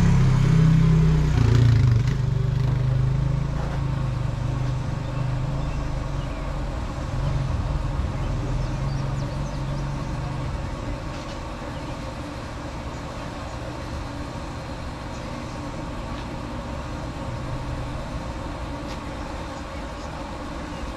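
A low, engine-like drone, loudest in the first couple of seconds and fading over about ten seconds to a quieter steady hum.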